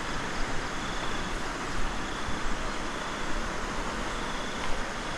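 Steady rush of a fast-flowing river, an even, unbroken noise of water running over rocks.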